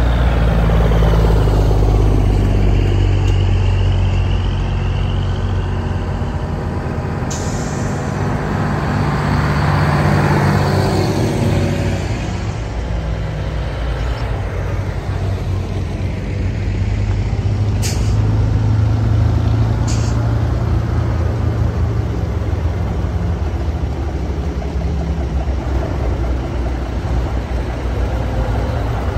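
Antique Brockway tractor trucks passing one after another, their heavy engines running loud and low as each goes by. Short sharp air-brake hisses come about 7 seconds in and twice more around 18 and 20 seconds.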